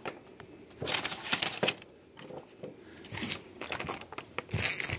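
Rustling and light clicks from solar-panel cables and plug connectors being handled, in short bursts about a second in, around three seconds, and near the end.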